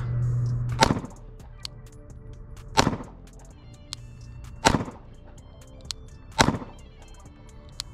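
Four 9mm shots from a Glock 43X pistol, fired slowly about two seconds apart, over quiet background music.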